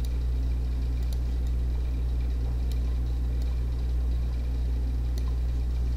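Steady low electrical hum from the recording setup, with a few faint clicks of a computer mouse.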